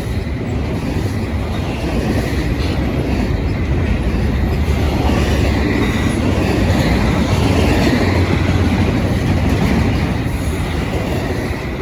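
Freight cars of a Norfolk Southern train rolling past: a steady, loud rumble of steel wheels on rail, swelling slightly in the middle, with a faint high wheel squeal.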